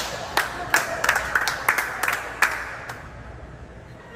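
A small group clapping irregularly over laughter, dying down after about three seconds.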